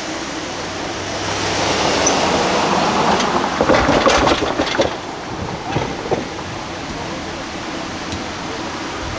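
A car driving past at road speed, its tyre and engine noise swelling for a few seconds, loudest about four seconds in, then fading.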